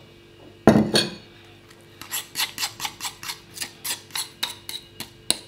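A spoon scraping and tapping cake batter out of a bowl into a hollowed bell pepper, in quick strokes of about four a second from about two seconds in, after a single knock of the bowl about a second in.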